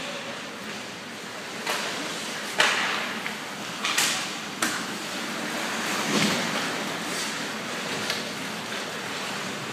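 Ice hockey play: sharp clacks and knocks of sticks, puck and skates over a steady hiss, about seven of them, the loudest about two and a half seconds in.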